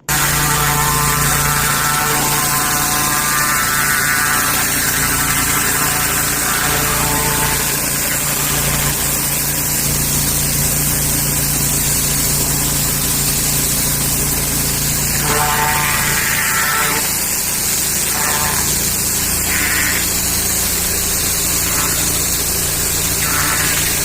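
Pressure washer running: a steady motor hum under the loud hiss of high-pressure water spraying onto block paving, starting abruptly.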